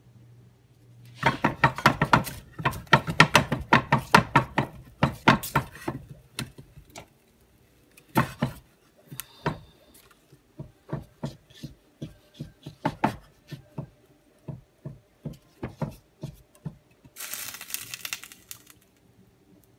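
A wrapped stick of margarine knocking and rubbing around a frying pan as it greases it: a run of sharp taps and knocks, thick and fast at first, then two or three a second, with a short crinkling hiss near the end.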